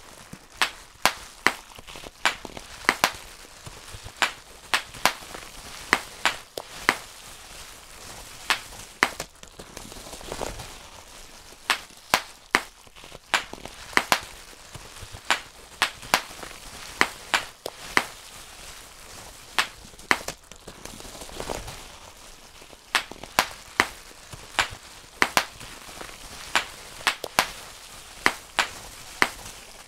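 Bubble wrap being popped by hand, one bubble after another: sharp, irregular pops a few times a second, in runs broken by brief pauses.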